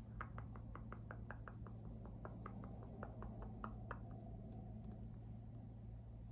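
Fingernails tapping quickly on a plastic squeeze tube, about five light taps a second, stopping about four seconds in. A steady low hum of background noise runs underneath.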